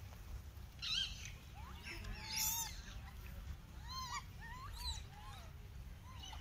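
Rhesus macaques giving a string of short, high squeals and chirping calls, the loudest about two and a half seconds in, over a low steady rumble.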